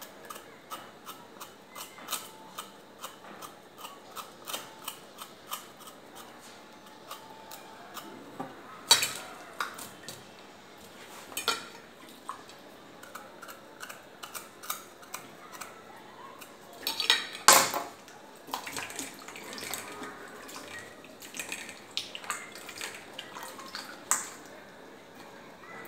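Kitchen knife making quick small clicks and scrapes as a piece of ginger is peeled by hand, with a few louder clinks of metal on a steel pot. The loudest of these is a cluster about 17 seconds in.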